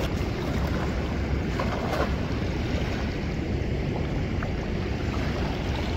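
Steady wind and sea-water noise in shallow coastal water, with a low rumble of wind on the microphone.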